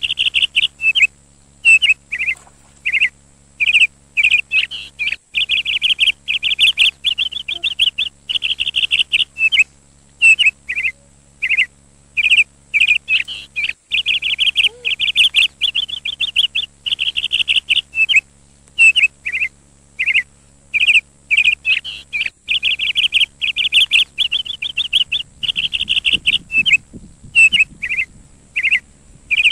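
A bird chirping over and over, in long trilled runs and short single notes with brief pauses between them.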